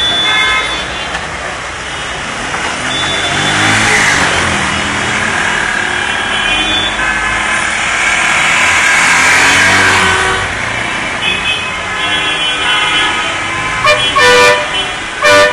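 Motor traffic on a flooded street: vehicles running through standing water with a steady swish that swells twice as they pass, and horns honking, ending with two short loud honks near the end.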